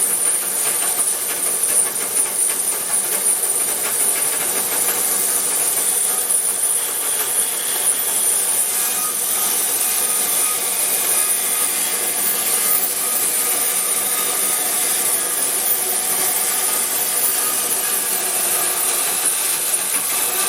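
36-inch resaw band saw running and cutting through timber: a steady high-pitched hiss.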